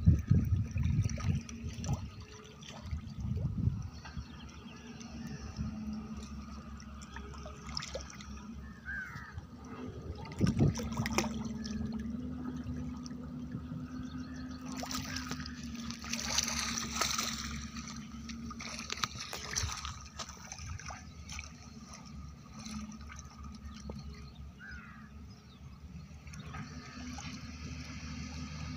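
Pond water trickling and splashing as a shoal of magur catfish (walking catfish) moves and surfaces among bubbles, with a faint low steady hum underneath.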